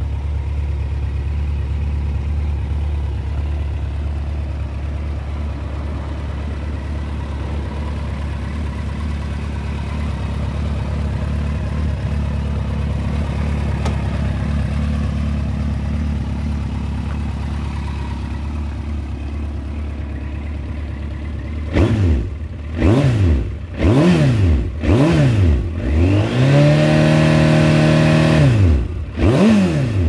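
Suzuki GSX1400's 1,400 cc air/oil-cooled inline-four, breathing through an aftermarket titanium silencer, idling steadily for about twenty seconds. Then it is revved in a series of quick throttle blips, with one rev held for a couple of seconds before more blips near the end.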